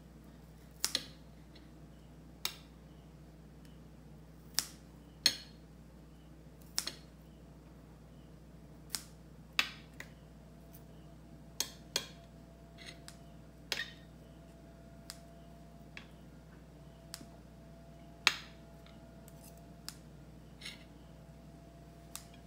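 Kitchen scissors and metal tongs cutting meat on a plate: irregular sharp metallic snips and clicks, about twenty of them.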